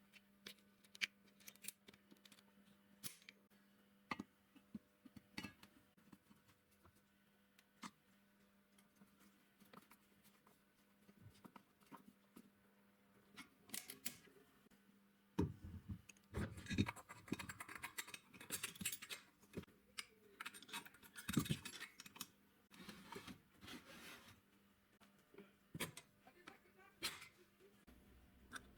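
Faint, scattered clicks and scrapes of hand handling, with a busier stretch of clicking and scraping from about halfway through.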